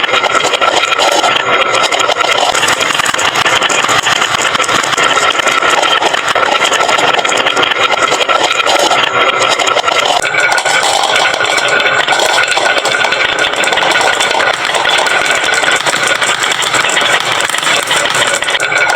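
A dense, continuous clatter of many marbles rolling down wooden slope tracks, with no let-up; about halfway through the rattle turns brighter.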